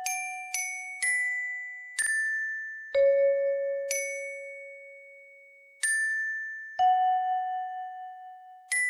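A slow melody of single notes on bell-toned tuned percussion, each note struck sharply and left to ring and fade, a few of them held for two seconds or more.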